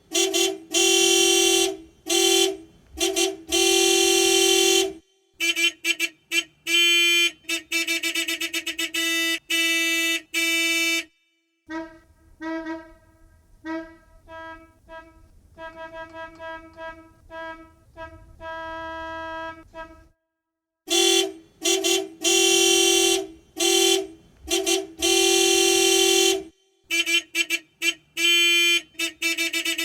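Classic car horn honking repeatedly: a mix of short toots and longer held blasts with brief pauses between them. Through the middle comes a quieter run of rapid short toots, then the loud honks return.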